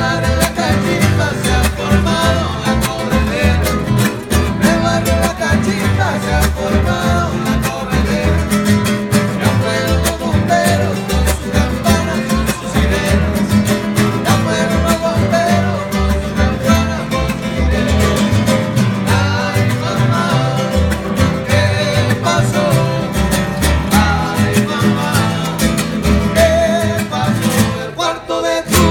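Live acoustic music: an acoustic guitar strummed, an upright bass plucked, and men singing, with a short break near the end.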